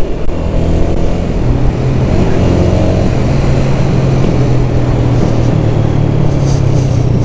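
Single-cylinder 125 cc motorcycle engine running steadily at cruising speed, heard from the rider's seat with wind and road noise on the microphone. The engine note rises a little about one and a half seconds in, then holds steady.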